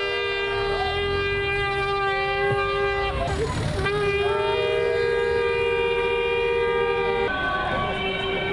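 Several shofars, long twisted animal horns, blown together in long held blasts at a steady pitch. There is a short break about three seconds in, then a second long blast that cuts off about seven seconds in.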